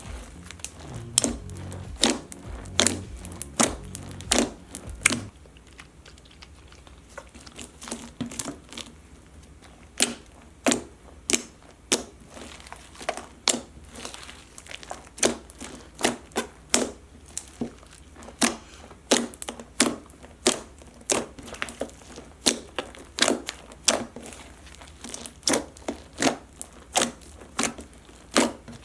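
Hands kneading and squeezing a large mass of slime being reactivated with liquid starch. It gives a string of sharp clicks and pops, a little under two a second, with a low rumble under the first five seconds.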